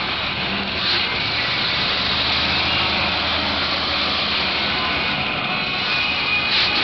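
War Wizard monster truck's supercharged engine running steadily as the truck drives across the arena's dirt floor.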